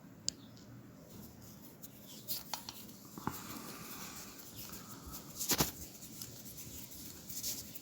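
Scattered small metal clicks and scrapes of a screwdriver working the screw that holds a metal utility knife's body together, with a louder knock about five and a half seconds in.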